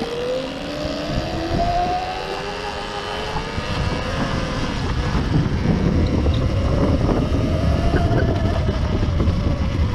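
Electric dirt bike's motor whining while riding, its pitch rising and falling with speed. Wind buffets the microphone with a low rumble that grows louder through the second half.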